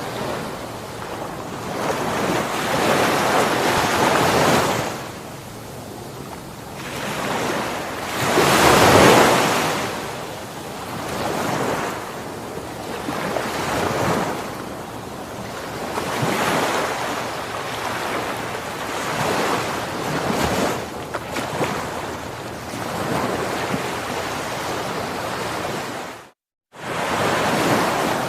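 Ocean waves washing onto a shore, a hiss of surf swelling and fading every few seconds, with the biggest wave about a third of the way in. The sound cuts out completely for about half a second near the end, then resumes.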